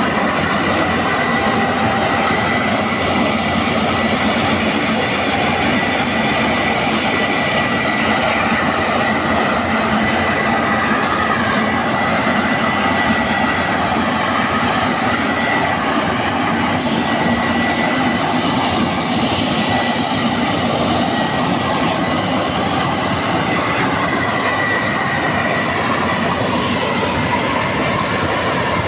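Combine harvester working: a loud, steady mechanical clatter with a thin, high, steady whine over it.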